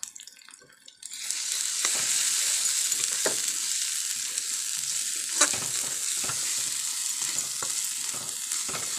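Ground spice masala frying in hot oil in a metal kadai, sizzling steadily, while a metal spatula stirs it with occasional scrapes and knocks against the pan. The sizzle starts abruptly about a second in.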